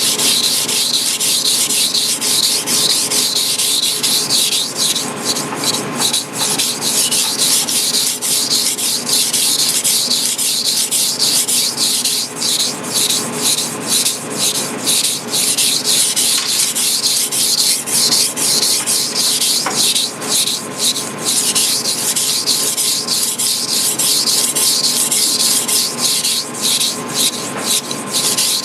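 Single-bevel Masahiro kitchen knife being sharpened on a whetstone: steel scraping across the stone in a continuous run of rapid back-and-forth strokes.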